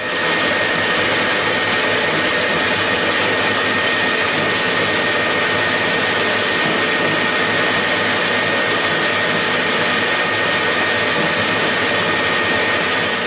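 Metal lathe running, a loud, steady mechanical noise with a constant high whine from its drive, while a hand file is held against the small spinning workpiece; it starts at once and holds even throughout.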